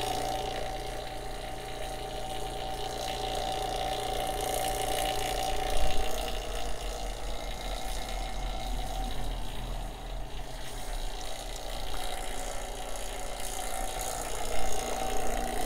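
Small electric AC vacuum pump running steadily as it evacuates air from the refrigerant hoses, with a steady motor hum. Two brief knocks come about six seconds in and again near the end.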